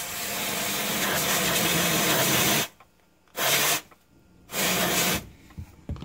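Can of compressed-gas electronic duster held upside down, spraying its propellant to chill a refrigerator's bimetal defrost thermostat. There is one long hiss of about two and a half seconds, then two short bursts.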